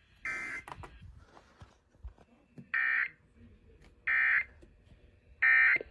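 Emergency Alert System SAME header tones from a radio: three short raspy digital data bursts, each about half a second long and spaced a little over a second apart. They are the encoded header that opens a new alert, here a severe thunderstorm warning.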